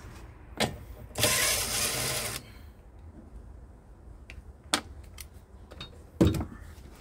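Clicks and knocks of a car's wiper arm being worked on its splined spindle to reset its resting position, with a harsh scraping rasp about a second long near the start and a heavier knock near the end.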